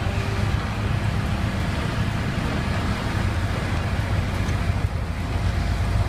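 Diesel engine of a 20-ton single-drum road roller running steadily, a constant low hum, as it compacts the freshly mixed, stabilized soil.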